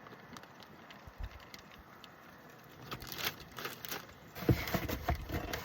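Items and their packaging being handled: faint at first, then scattered clicks and rustles, growing into louder, irregular rustling and knocking about four and a half seconds in.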